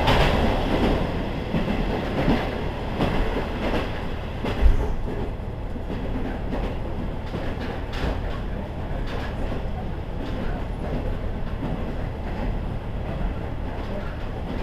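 KiHa 40 series diesel railcar running along the line, heard from inside the car: a steady rumble of wheels and running gear with scattered clacks over rail joints, the loudest nearly five seconds in. The sound eases off over the first couple of seconds, then stays even.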